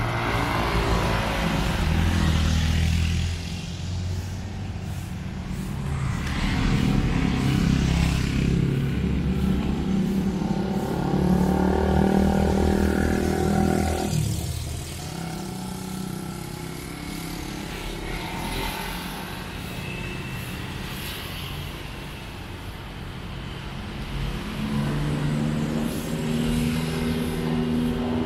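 Road traffic: motor vehicles driving past one after another, their engine hum swelling and fading, with the longest and loudest pass in the middle and another near the end.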